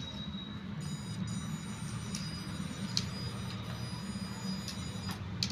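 Small toy RC car's electric motor and gears whining in stretches as it drives across artificial turf, with a few light clicks, over a steady low hum.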